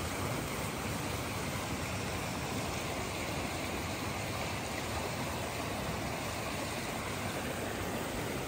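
Steady rushing of flowing stream water, an even unbroken noise.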